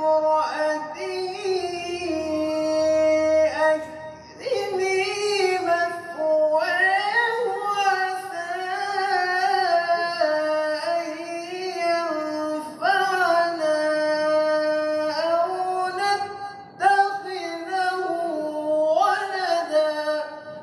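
A man's solo voice reciting the Quran in Arabic in a melodic tajweed style, drawing out long held, ornamented notes in several extended phrases with short breaths between them.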